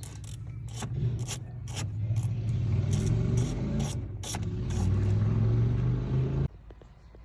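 A low mechanical hum with a steady pitch that grows louder, with irregular sharp clicks and knocks on top; it all cuts off suddenly about six and a half seconds in.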